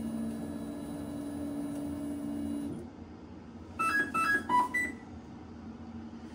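Bambu Lab H2-series 3D printer's motors run with a steady hum and whine for about three seconds as the toolhead travels during the cutting module's calibration. About a second later the printer sounds a quick run of about six electronic beeps at changing pitches.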